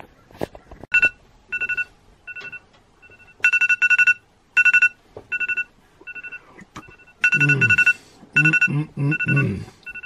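Phone timer alarm going off, with repeated groups of fast, high-pitched beeps: the three-hour cooking timer set through Siri has run out. A man's voice is heard briefly under the beeps near the end.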